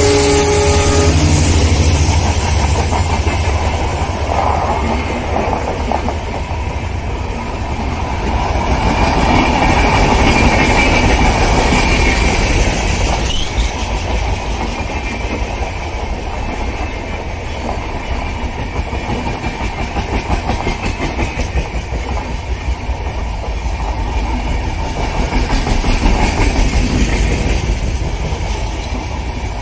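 LHB passenger coaches of an express train rolling past at speed: a steady rumble with a rhythmic clickety-clack of wheels over the rails, swelling and easing as the coaches go by. The tail of the diesel locomotive's horn ends about a second in.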